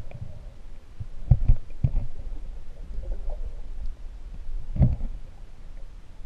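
Muffled underwater sound picked up by a submerged camera: a low rumble of moving water with dull thumps, three in quick succession a little over a second in and another near five seconds.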